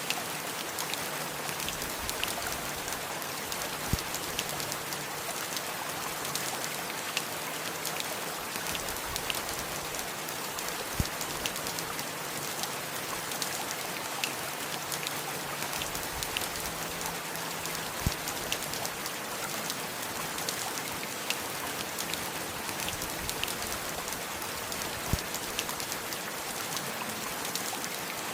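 Steady rain falling, with many small sharp drop hits throughout and a louder single drip knock about every seven seconds.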